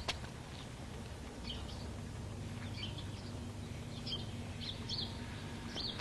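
Quiet background ambience: a low steady hum with a sharp click near the start and a few short, high chirps scattered through.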